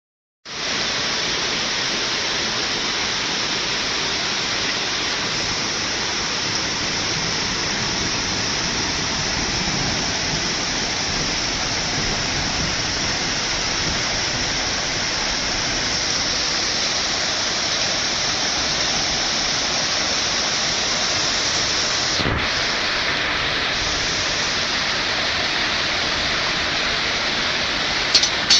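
Steady rushing noise of water, heavy and unbroken, with a brief dip about three-quarters of the way through.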